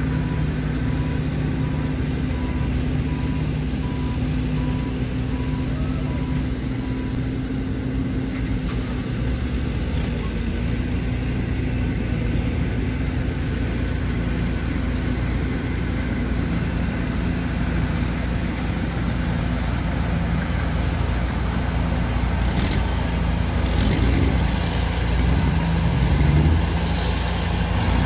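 Caterpillar 140H motor grader's diesel engine running steadily as the grader works loose dirt, getting louder near the end as the machine comes close.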